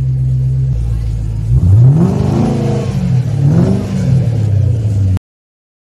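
Shelby Mustang's V8 running at a fast idle, then revved twice, each rev rising in pitch and falling back to idle. The sound cuts out abruptly about five seconds in.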